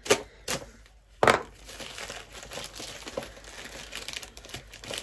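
Plastic poly mailer bag rustling and crinkling as a box is worked out of it. A few sharp rustles come in the first second and a half, the loudest about a second and a quarter in, followed by steady small crinkles.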